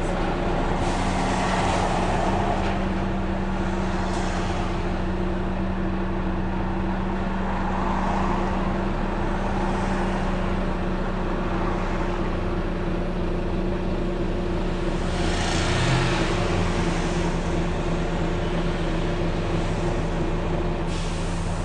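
Volvo B9TL double-decker bus heard from inside the lower deck, its diesel engine running steadily as it drives. Several short hisses of compressed air being released break over the engine noise: one about a second in, another around four seconds, a longer one about two-thirds of the way through, and another near the end.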